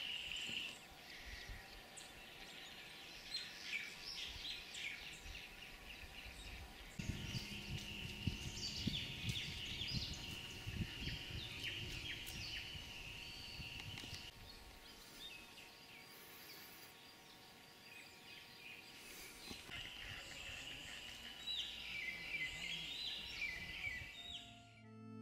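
Outdoor woodland ambience: birds chirping and calling now and then, over a steady high insect trill that is heard at the start and again from about a third of the way in. A low rumbling noise comes in with the second stretch of trill and fades after several seconds.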